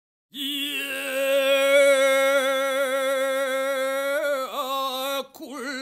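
A solo voice chanting one long, steady note that wavers in pitch near the end and breaks off about five seconds in, then starts a new phrase.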